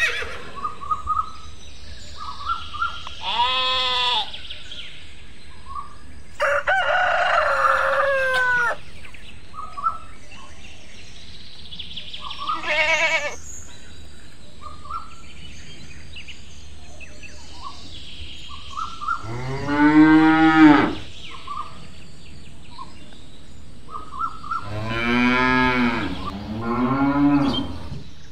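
Cow mooing three times in the second half, the first moo the loudest, over small birds chirping. There are a few shorter animal calls in the first half.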